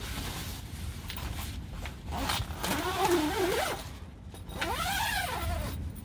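Two drawn-out squeaks, each about a second long and rising then falling in pitch, about two and a half and five seconds in, over a steady rushing noise.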